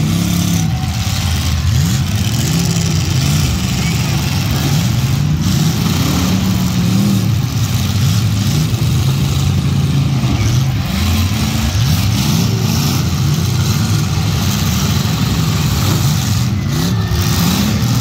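Several demolition derby cars' engines running and revving at once, their pitches rising and falling over one another in a steady, loud din.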